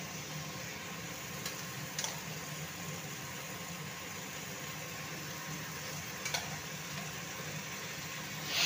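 Onion masala and macaroni sizzling steadily in a hot kadai, with a couple of faint ticks and a brief louder hiss near the end.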